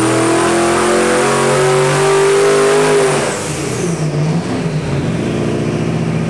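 Twin-turbocharged 472 cubic inch Chrysler Hemi V8 at full throttle on an engine dyno, revs climbing with a high whine. About three seconds in, the throttle closes: the whine winds down and the engine drops back to a low, steady run.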